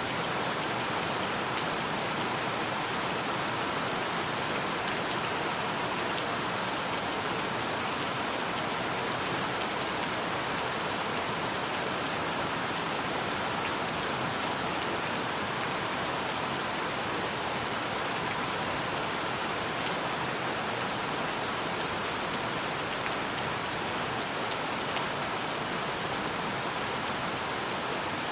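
Steady, heavy rain falling on a surface, an even hiss with a few faint individual drop ticks.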